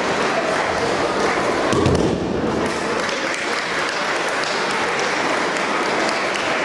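A thrown aikido partner's body lands on the mats with a single thud just under two seconds in. A steady murmur of a large crowd in a big hall runs underneath.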